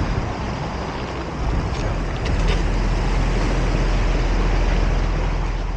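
Boat engine running with a steady low hum, mixed with wind buffeting the microphone and the wash of water; it grows a little louder about a second and a half in.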